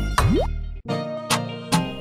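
Background music with a regular beat and sustained notes. Near the start a short rising glide sweeps upward, and the music cuts out briefly just before the one-second mark, then picks up again.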